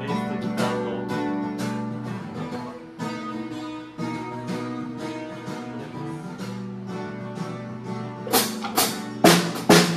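Guitar playing, notes and chords ringing out and fading, with a few sharp, loud strokes near the end.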